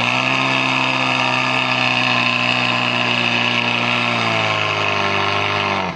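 Portable fire pump's engine running hard while it pumps water into the hose line. Its pitch climbs just at the start, holds steady, then sags slightly near the end.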